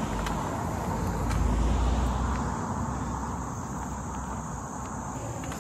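A car passes on a road, its engine and tyre noise swelling to a peak about two seconds in and then fading. Crickets keep up a steady high-pitched trill throughout.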